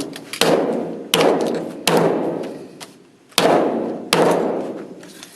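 Hammer beating on a plastic-free-standing replacement armrest lid latch: five hard blows, each ringing out briefly, the first three close together and the last two after a pause of about a second and a half.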